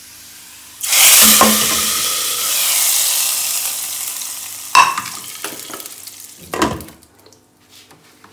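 A hot desi-ghee tadka of fried onions, whole red chillies and cumin poured into a pot of boiled chana dal: a loud, sudden sizzle about a second in that slowly fades. A sharp metal clank follows, and then a knock as the lid goes onto the steel pot.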